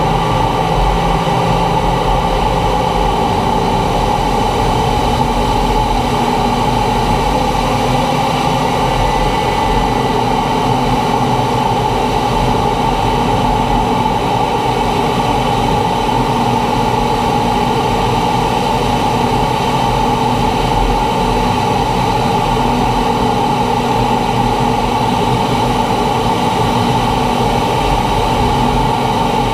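T-45 Goshawk jet trainer's Rolls-Royce Adour turbofan and rushing airflow in low-level flight: a loud, steady drone with an even hum and hiss that does not change.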